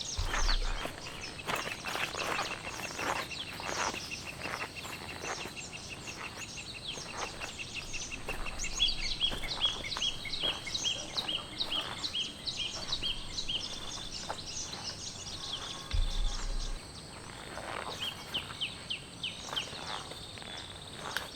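Wild birds calling: a rapid, even trill for several seconds, then a run of short, repeated down-slurred chirps about two a second, against outdoor ambience with scattered ticks.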